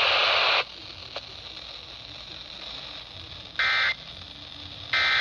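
Emergency Alert System end-of-message data bursts: two short warbling digital squawks, about a third of a second each and roughly 1.4 s apart. They follow a loud hiss of radio static that cuts off just over half a second in.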